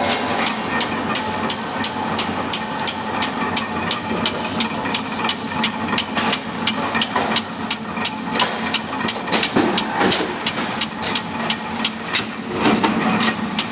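Metalworking machinery knocking in a steady rhythm, about three sharp metallic strikes a second, over a constant machine hum.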